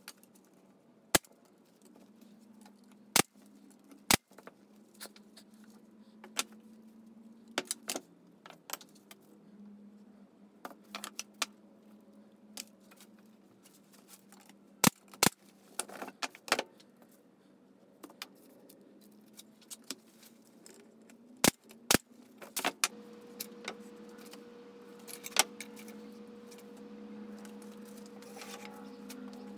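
Pneumatic brad nailer firing several sharp shots, some in quick pairs, as thin wooden divider strips are nailed into place, amid light clatter of wood pieces being handled. A steady low hum runs underneath, with a second higher hum joining about two thirds of the way in.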